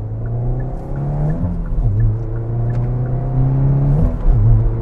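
Hyundai i20N's 1.6 turbocharged petrol engine under full throttle, heard inside the cabin: the revs climb, drop at an upshift of the six-speed manual about a second and a half in, climb again, and drop at a second shift about four seconds in.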